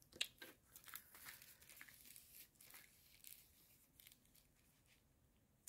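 Faint crinkling and rustling of the clear plastic film over a diamond painting canvas as hands press and smooth a cloth tape measure across it, with a few light ticks. It dies away after about three seconds.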